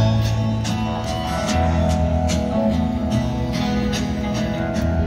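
Country band playing live between sung lines: acoustic guitar over a bass line and drums, with a steady beat.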